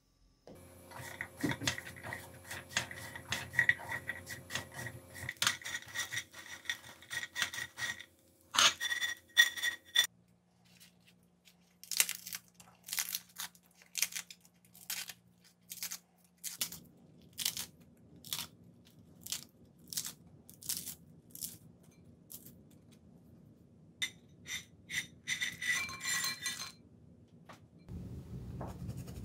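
Bread cubes toasting and being moved about in a stainless-steel frying pan, a scraping and clinking that runs for about the first ten seconds. Then romaine lettuce leaves are torn by hand in a series of short, crisp snaps. Near the end a burst of clinks follows, as croutons drop into a glass bowl.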